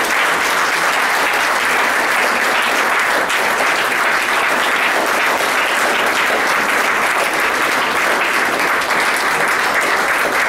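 An audience of a few dozen people applauding steadily.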